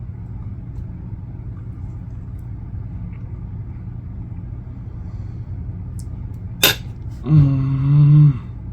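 A steady low hum in the background; near the end a sharp click, then a man humming a one-second "mmm" of enjoyment while tasting food.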